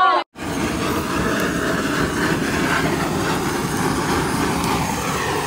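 Handheld gas blowtorch running with a loud, steady rushing flame, cutting in abruptly just after the start. It is being turned on the grill fire to get it lit after it would not catch.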